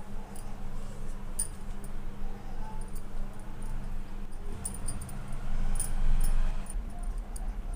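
Bangles on a working wrist giving small scattered clinks as hands pinch and fold the edge of soft dough, over a steady low hum.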